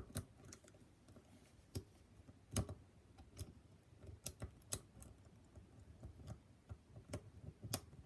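Scattered small metal clicks and scrapes of a rounded hollow half-diamond rake worked over the wafers of a car ignition switch wafer lock, which is held under heavy turning tension. The clicks come at an uneven pace, a few of them louder.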